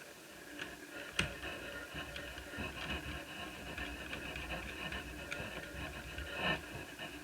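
A few sharp clicks and taps of plastic and small metal parts of an Asus Eee PC 1001P netbook being handled during reassembly, the loudest about a second in, over a steady high hum.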